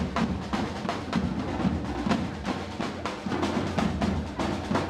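Street drum band playing live, a steady driving beat of many drum strokes a second with deep drums underneath.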